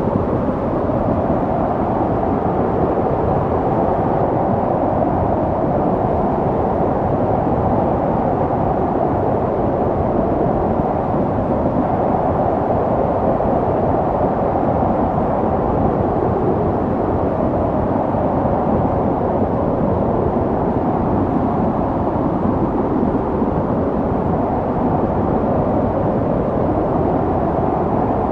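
Snowstorm wind blowing steadily, a dense rushing noise with a low hollow tone that swells slightly about halfway through.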